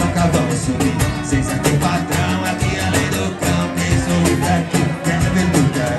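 Live acoustic band playing a song: hand-played cajón keeping a steady beat under an electric bass and a strummed acoustic guitar, with men singing.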